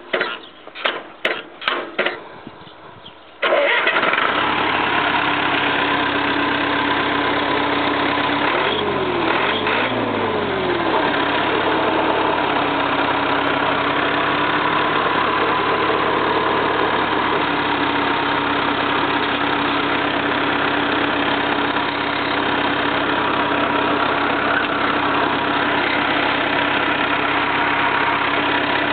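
Jacobsen mower's four-cylinder Perkins diesel engine cranking over in rhythmic pulses, catching about three and a half seconds in and then running steadily. It is briefly revved up and back down about a third of the way through, then settles to a steady run.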